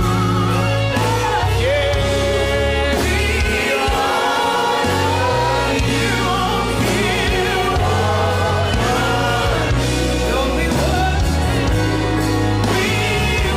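Gospel worship music: several voices singing a melody over a band with a sustained bass line that moves in steps.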